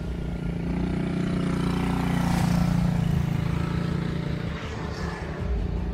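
A motor vehicle passing on the road, its engine hum swelling to its loudest about two and a half seconds in and then fading away.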